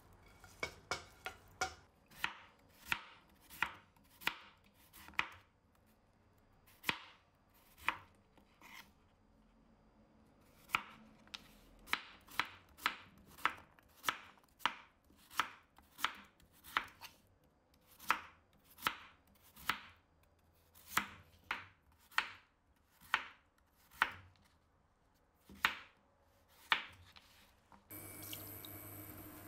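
Kitchen knife slicing a raw potato against a wooden cutting board: a long run of sharp knocks, about one and a half a second, with a short pause about a third of the way in. Near the end the knocking stops and a steady hiss with a low hum takes over.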